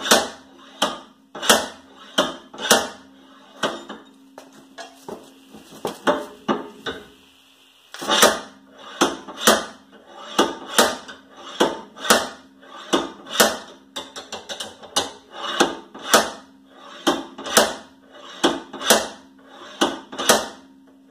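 Hammer blows on a chisel, metal on metal, about two a second, driving the chisel into the gap to free the Prius's old rear wheel hub. The blows are lighter for a few seconds and pause briefly near the middle before resuming at full strength.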